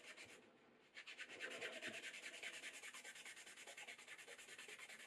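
Cloth buffing a leather knife sheath: a fast, steady run of quick rubbing strokes, many a second, faint and hissy, starting about a second in.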